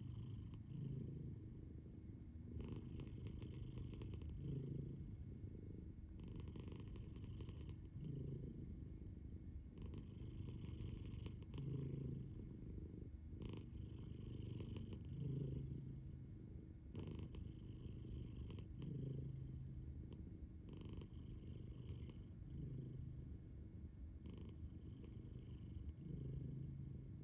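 Domestic cat snoring: a low, rough rumble that swells with each breath, about every three to four seconds.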